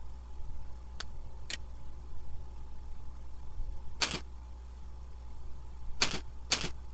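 Computer mouse clicking five times at irregular intervals, over a steady low hum.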